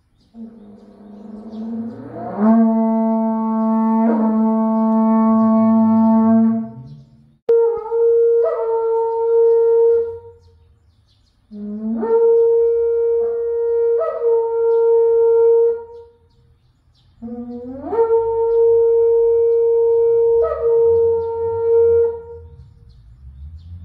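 A horn-like wind instrument blowing four long held notes a few seconds each, with short breaks between them. The first note is lower; the later ones slide up at the start into a higher held pitch.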